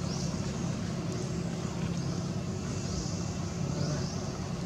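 A steady low motor hum, with faint short rising high-pitched chirps recurring every second or so.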